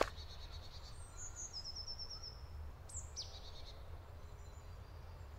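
Forest birds singing faintly, with a short rapid trill about one and a half seconds in and a quick falling call about three seconds in, over a low steady rumble. A single footstep on the gravel track right at the start.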